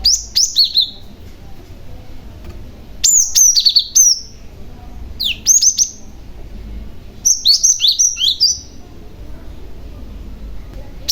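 Young cinereous tit (glatik batu) calling: four bursts of quick, high chirping notes that slide downward, spaced a second or two apart.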